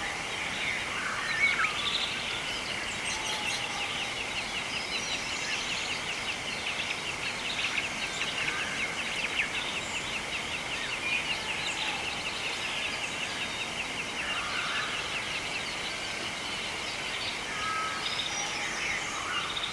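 Birds calling outdoors: scattered short chirps and whistles, and a long, fast, evenly pulsing trill that starts about a second in and stops around fourteen seconds, over a steady background hiss.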